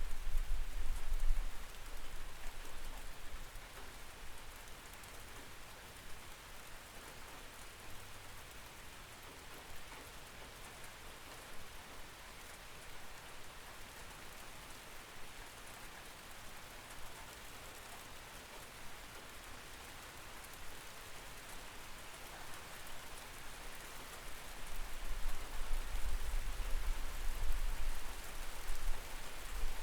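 Steady rainfall heard through a window, an even patter of drops. A low rumble swells at the start and again from about 25 seconds in.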